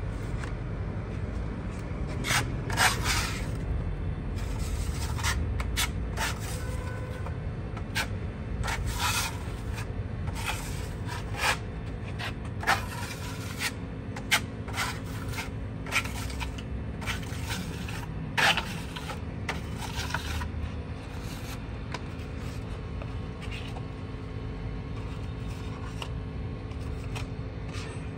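A hand tool scraping and rubbing over a rough cement-plastered wall in repeated strokes, some sharper and louder than others, over a steady low background rumble.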